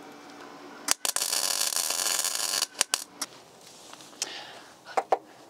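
Wire-feed MIG welder laying a short weld on the steel sill patch: a steady burst of arc crackle starting about a second in and lasting about a second and a half. A few sharp clicks follow.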